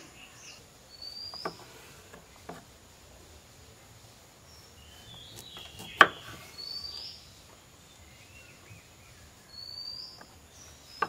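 A kitchen knife knocking on a wooden chopping block as it cuts through small bulbs, four separate chops, the loudest about six seconds in. Birds give short rising chirps three times in the background.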